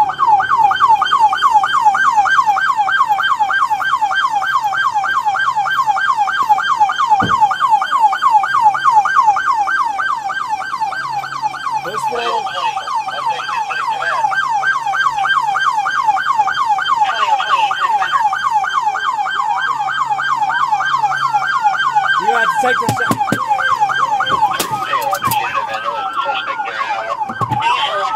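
Police car siren on yelp, a fast rise-and-fall wail repeating about three times a second. In the second half a second siren's slower wail rises over it, and a few short knocks sound near the end.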